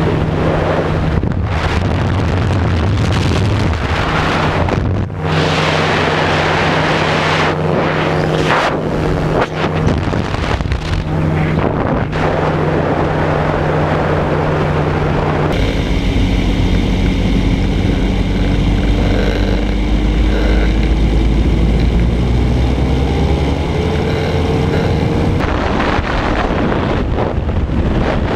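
Ultralight trike's engine running steadily in flight, with heavy wind buffeting the open-air microphone. About halfway through, the sound changes for some ten seconds to a deeper rumble under a hiss, with the engine note gliding slowly in pitch.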